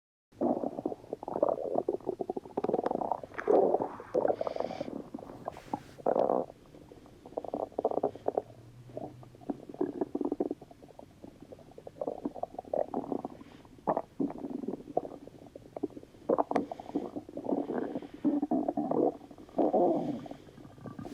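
Loud stomach-rumbling sound effect: a long, uneven run of gurgles and rumbles with short pauses between them.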